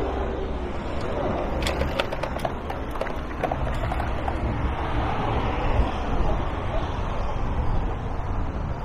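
City street ambience: a steady rumble of traffic with faint indistinct voices, and a few short clicks about two seconds in.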